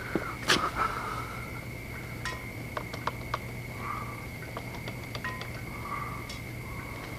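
Metal hand tools clinking and tapping as they are handled, with a louder knock about half a second in and a run of small clicks from about two to three and a half seconds in. A faint steady high whine runs underneath.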